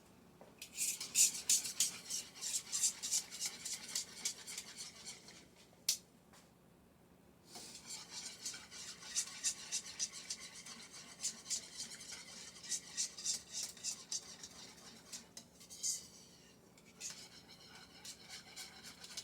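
A utensil stirring a thickening flour-and-milk sauce in a metal pot, scraping the pan in quick rhythmic strokes, with a pause about six seconds in and another shorter one near the end.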